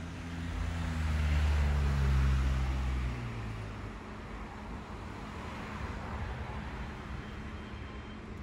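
A vehicle passing close by: a low engine drone that swells, slides slightly down in pitch and fades out about three seconds in, with tyre-like hiss, followed by a weaker second pass of hiss a few seconds later.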